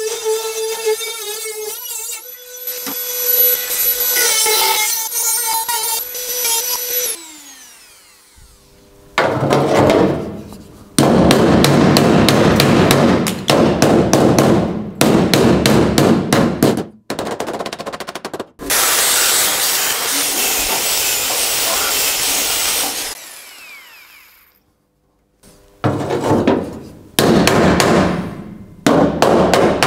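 A Dremel rotary tool with a small cut-off disc whines steadily as it cuts into the steel of the door-hinge mount. After a pause of about two seconds, a ball-peen hammer strikes the steel hinge in fast runs of blows with short breaks between them.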